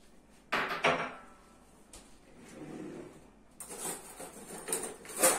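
Kitchen clatter: a handful of sharp knocks and scrapes of kitchenware, the loudest about half a second in and just before the end.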